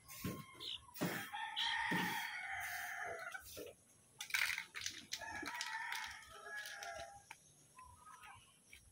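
A rooster crowing twice, each crow a long call of about two seconds, with a few sharp clicks in between.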